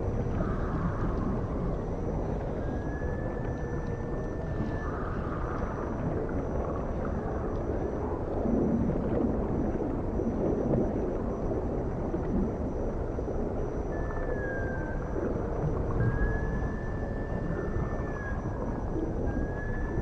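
Underwater cetacean calls: long drawn-out whistles, each held nearly level for about two seconds, come several times, along with shorter gliding calls, over a constant rumble of water noise.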